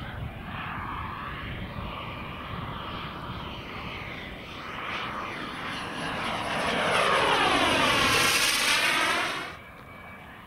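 Turbine of a 1/5-scale RC Dassault Rafale jet (JetsMunt M210 model jet turbine) in flight. The whine and rush swell over the second half as the jet makes a fast close pass with a sweeping, swooshing tone, then drop away sharply near the end.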